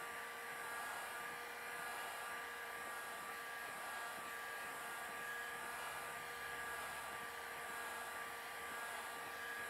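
Handheld electric heat gun running steadily: a constant rush of blown air with a faint, steady motor whine.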